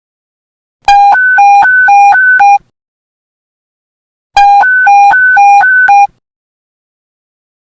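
Police radio panic-button alert tone: a loud two-tone electronic beep alternating quickly between a low and a high note, about seven notes per burst. It sounds twice, about a second in and again some three and a half seconds later, with silence between.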